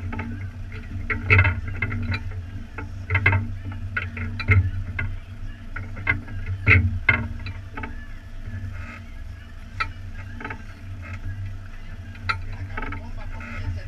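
Fishing boat at sea: a steady low rumble runs throughout, with irregular knocks and slaps of water and gear against the hull every second or two.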